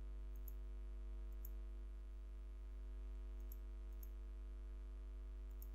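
Steady electrical mains hum on the recording, with a handful of faint computer mouse clicks.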